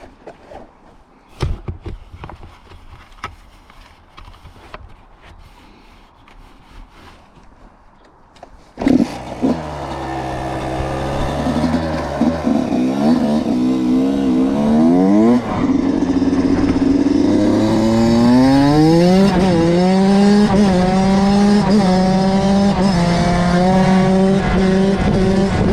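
Kawasaki KX85 two-stroke single-cylinder dirt bike engine fires up about nine seconds in after some scattered knocks and clicks, then is revved up and down in short blips. Near the two-thirds mark the revs climb steeply and hold high and steady.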